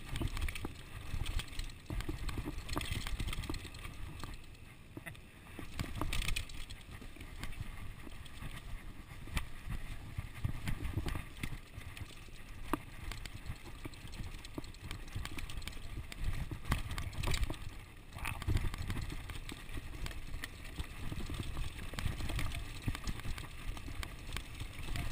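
Ellsworth Evolve full-suspension mountain bike rolling fast down a dirt singletrack: a steady rumble of tyres and wind on the microphone, with frequent rattles and knocks from the bike over roots and rocks.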